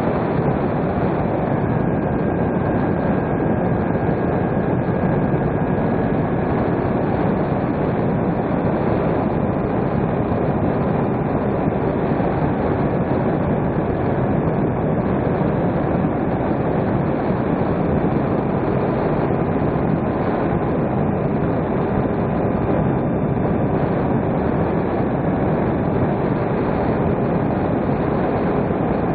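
Steady rush of airflow and the drone of an electric RC plane's motor and propeller, heard from a camera on board the plane in flight. A faint steady tone runs through the noise.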